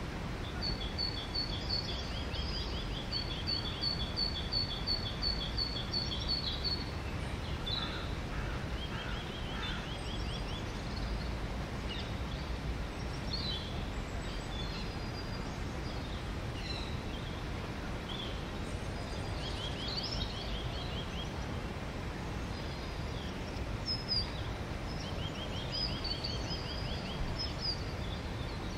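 Songbirds singing and calling over a steady low background rumble. One bird repeats a rapid series of high, evenly spaced notes for several seconds near the start, and returns with shorter runs a few more times, among scattered chirps.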